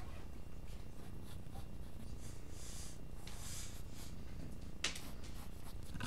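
Graphite pencil sketching on paper, with two longer scratchy strokes midway and lighter strokes around them, over a steady low hum. A single sharp tick comes near the end.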